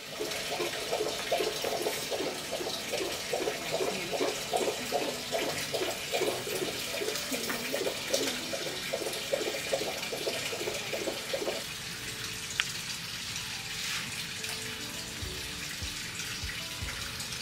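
Steady running water, with a repeated pulsing sound over it for the first twelve seconds or so that then stops.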